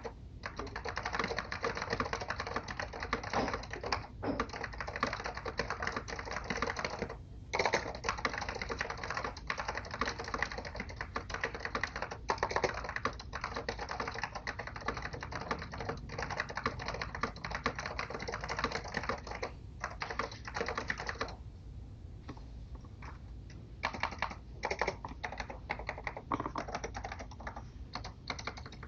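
Apple Extended Keyboard M0115 with orange Alps switches being typed on at speed: a dense, continuous clatter of key clicks. There are two brief pauses, about four and seven seconds in, and the typing thins out to scattered keystrokes for a few seconds about three-quarters of the way through.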